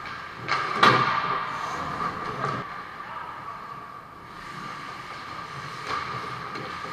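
Ice hockey play on an indoor rink: skates and sticks on the ice, with a sharp crack about a second in and a smaller one near the end, over a steady high hum.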